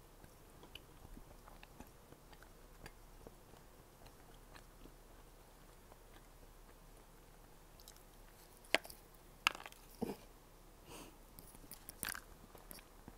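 Close-miked chewing of a strawberry doughnut: faint wet mouth clicks for the first several seconds, then a few sharper bites and crunches, starting a little before the nine-second mark.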